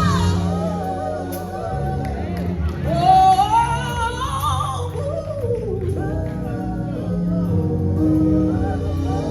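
Live gospel music: a band playing under the lead singer, who holds and bends a wordless sung line, her voice sliding up and then back down about three seconds in.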